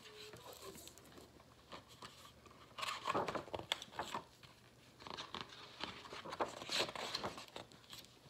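A hardcover picture book being handled and opened, its cover and pages rustling and crinkling in two spells, the first about three seconds in and the second from about five seconds to near the end.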